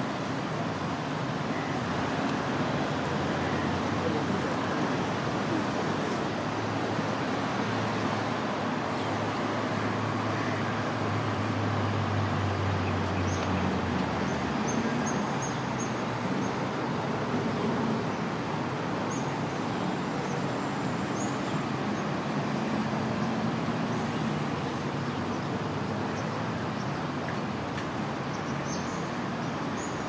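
Steady road traffic noise from a city road bridge, with a low vehicle engine hum swelling about ten to fourteen seconds in.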